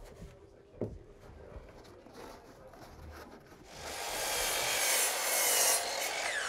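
DeWalt sliding miter saw cutting through a wooden board. The cut starts about four seconds in and lasts a couple of seconds, then the blade's pitch falls as it spins down near the end.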